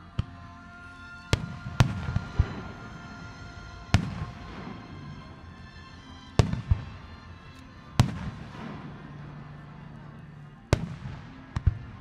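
Aerial firework shells bursting: about eleven sharp booms at irregular intervals, some in quick pairs, each trailing off in a rolling echo.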